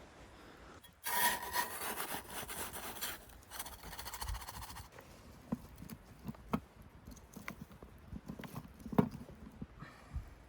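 A cooking pot being filled and set up to boil water: a rushing, scraping sound for about four seconds, then scattered knocks and clicks as the pot and camp gear are handled.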